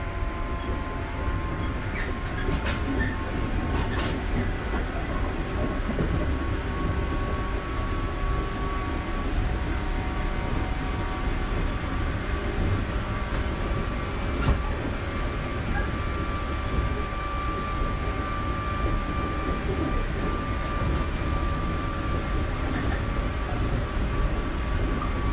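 JR Shikoku 121 series electric train running steadily, heard from inside the car: a constant low rumble of the wheels on the rails, with a few faint steady tones and occasional brief clicks from the track.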